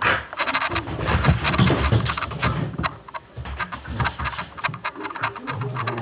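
Border collie moving about: a quick, irregular patter of paws and claw clicks on a woven mat and wooden floor, with low thumps.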